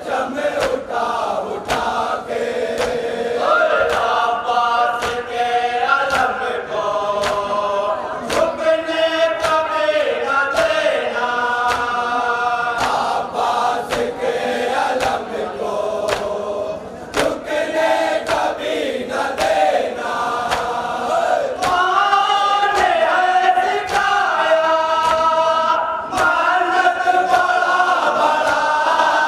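Group of men chanting a nauha, a Shia lament, in unison after a reciter on a microphone. Sharp repeated hand strikes of matam (chest-beating) run through the chant.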